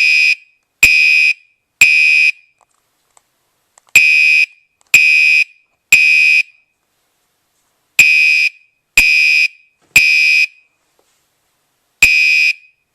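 Gentex GEC3-24WR (Commander 3) fire alarm horn sounding loud in the temporal-3 evacuation pattern: three half-second blasts about a second apart, a pause of about two seconds, then another group of three, repeating.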